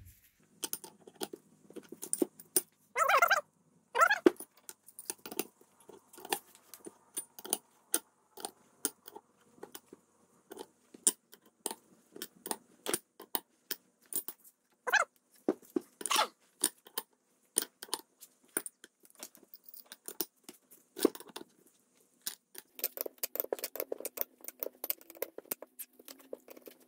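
Steel puller parts, a threaded shaft, nuts, plate and receiver cup, clinking and clanking against a Mercedes W126 lower control arm and a wrench as a homemade bushing puller is fitted and tightened; many irregular sharp metal clicks, with a couple of longer scraping or squeaking sounds.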